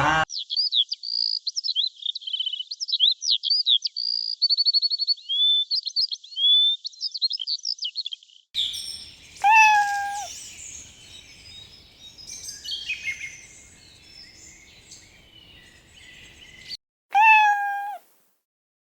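A songbird sings a fast, varied run of high chirps and trills for the first half. Then a cat meows twice in a high pitch, once shortly after and once near the end, with more bird chirps in between.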